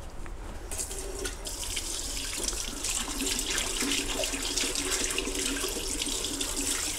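Kitchen tap turned on about a second in, then water running steadily into the sink and splashing over a cleaned John Dory held under the stream. A low hum sits beneath the water from about two and a half seconds in.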